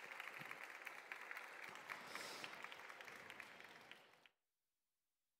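Faint audience applause, many hands clapping, which cuts off abruptly about four seconds in.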